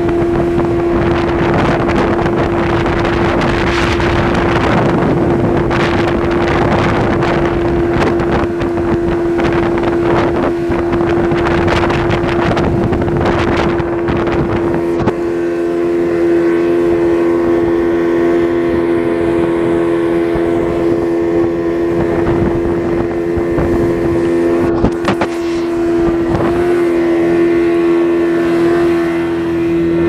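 Speedboat engine running steadily at speed, a constant high drone, with wind buffeting the microphone and spray hissing. The wind and spray noise thins about halfway through, leaving the engine's steady tone clearer.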